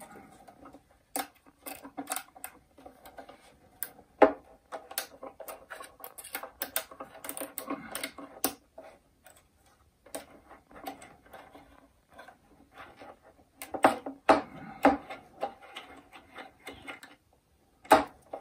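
Strings being unwound and removed from a baroque violin: irregular clicks and ticks as the wooden pegs turn and the slack strings tap against the instrument. There are a few louder knocks, and a faint pitched ringing from the loose strings.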